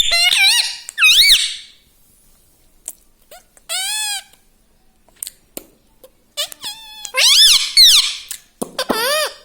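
Indian ringneck parrot giving squeaky, warbling whistles that swoop up and down in pitch, in four bouts with short pauses between.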